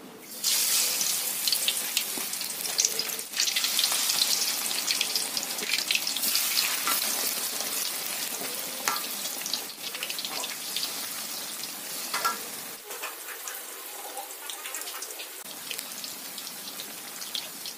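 Whole catfish deep-frying in hot oil in a wok. The sizzle starts suddenly about half a second in as the fish go into the oil, full of crackling pops, and slowly dies down as the frying settles.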